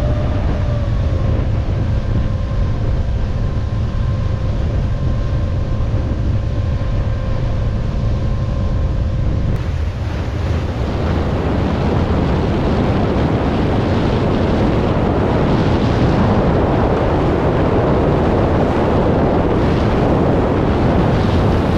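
Motorboat running underway: steady engine rumble with wind buffeting the microphone and water rushing past the hull. A steady whine over the first ten seconds or so stops, and the wind and water noise grows fuller after that.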